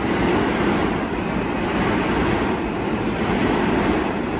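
Steady rumbling din of a subway train running on the adjacent track of the station, heard through the open doors of a stopped subway car.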